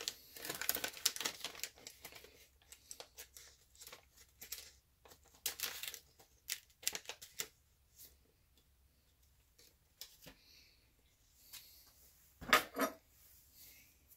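Shiny plastic pouch of photo-stencil film crinkling and rustling as a sheet of film is drawn out and handled, busiest in the first half and sparser later. A sharper knock about twelve seconds in.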